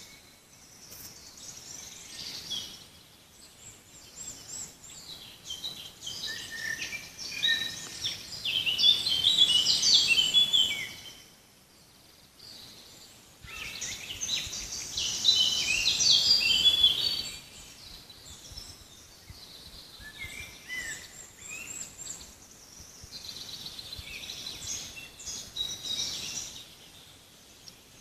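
Several songbirds singing in a forest, overlapping chirps and trills, busiest in two loud stretches near the middle, over a faint steady hiss.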